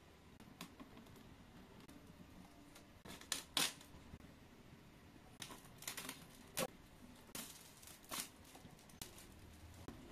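Clear plastic shrink wrap being torn and peeled off a cardboard box, crinkling in irregular sharp crackles. The loudest crackles come about three and a half seconds in, with more clusters around six and eight seconds.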